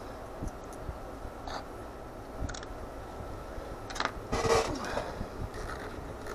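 Small screwdriver turning a screw into a plastic model engine: faint clicks and scrapes of metal on plastic and of handling, with a louder scrape-and-rustle about four and a half seconds in.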